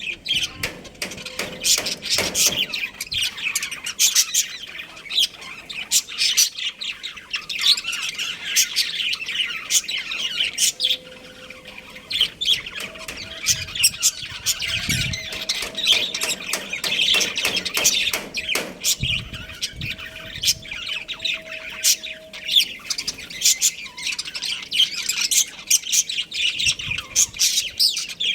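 Budgerigars chirping and chattering continuously, with many short, sharp calls.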